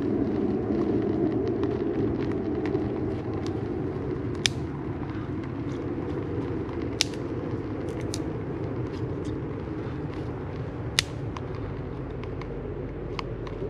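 A small wood fire crackling, with a handful of sharp, separate snaps spread through a steady low rumble that slowly fades.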